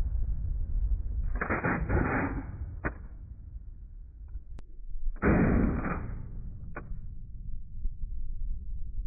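Two shots from an AMD-65, a Hungarian AK-pattern rifle, in slowed-down slow-motion audio. Each is a deep, muffled boom drawn out to about a second, followed by a sharp click. The shots come about four seconds apart.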